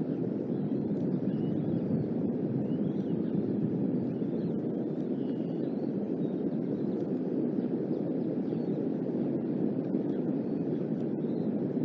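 Strong gusty wind rumbling steadily on an outdoor nest-camera microphone, with a few faint high bird chirps above it.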